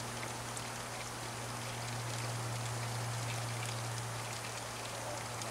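Steady even hiss with a low steady hum underneath, and no distinct events.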